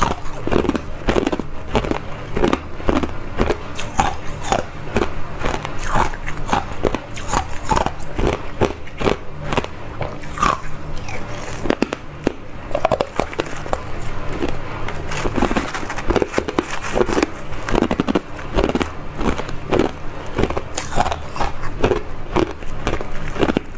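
Small cubes of hard ice being bitten and crunched in the mouth, close to a clip-on microphone: a dense, continuous run of sharp cracks and crunches.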